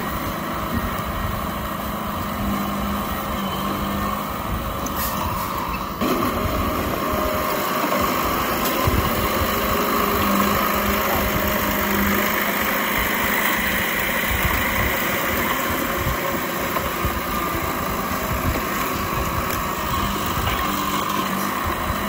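Komatsu D31P crawler bulldozer's diesel engine running steadily as the machine works, stepping up abruptly in level about six seconds in.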